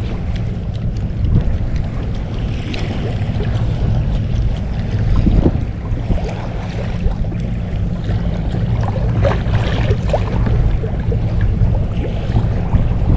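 Wind buffeting the microphone and small waves slapping against the hull of an inflatable rubber boat, over a steady low hum.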